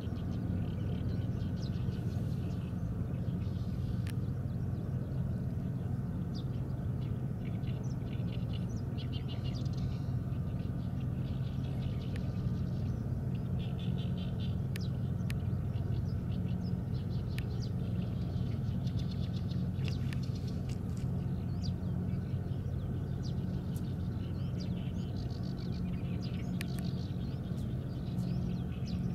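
Small birds chirping in short, quick clusters on and off, over a steady low hum of outdoor background noise.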